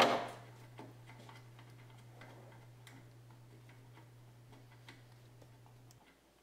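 Ratchet with a 13 mm socket clicking in slow, uneven strokes as it loosens the nut holding a wiper arm to its pivot stud, after one sharp knock at the very start.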